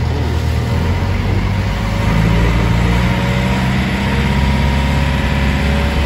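Small passenger boat's engine running steadily under way, with a low droning hum and a rushing hiss over it; it grows slightly louder about two seconds in.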